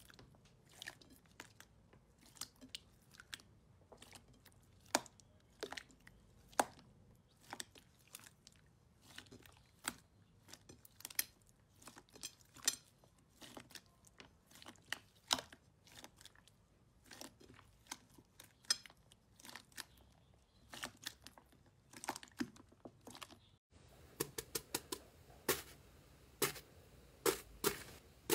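Slime being squeezed and kneaded by hand, giving irregular sharp crackles and pops. About 24 seconds in it changes to faster, crunchier crackling as fingers press into a slime full of small foam beads.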